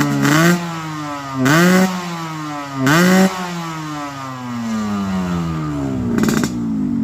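Yamaha RX-King 135cc two-stroke single revved through a stainless-steel Cobra-style under-belly exhaust tuned for a snoring 'ngorok' note. Three quick throttle blips in the first three seconds each rise sharply and then wind slowly back down. A shorter blip comes near the end.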